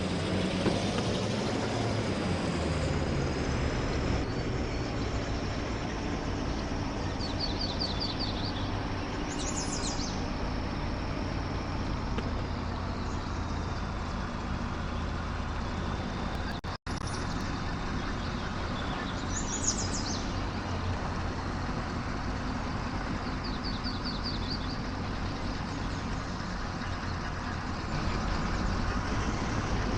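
A GAZ truck's engine running steadily, its pitch falling over the first few seconds. The sound drops out for an instant about halfway through.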